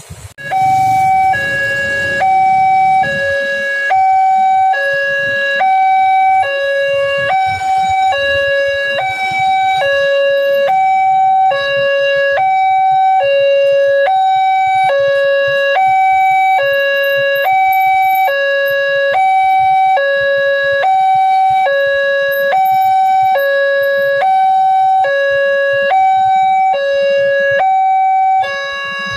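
Electronic level-crossing warning alarm sounding from the signal's loudspeaker: a loud two-tone chime alternating high-low, about one pair a second, starting about half a second in. It is the warning that a train is approaching the crossing.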